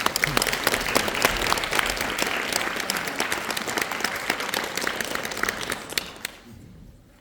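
Audience applauding: many hands clapping together, loud at first, then thinning and dying away about six to seven seconds in.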